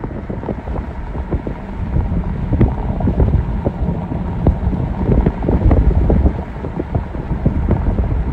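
Strong wind buffeting the microphone: a heavy low rumble with frequent short pops.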